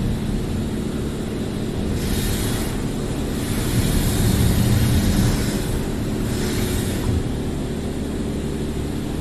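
Monorail in-bay automatic car wash spraying the car, heard from inside the cabin: washes of spray hiss swell and fade several times as the spray passes over, over a steady low hum of the wash machinery.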